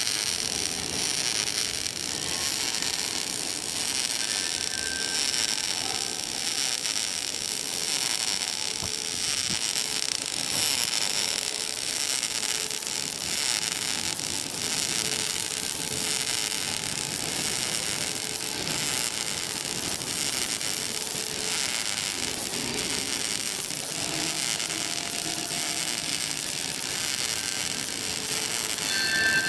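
Welding arc of an automatic wire-fed orbital pipe welder crackling steadily as it runs a weld around a large-diameter steel pipe.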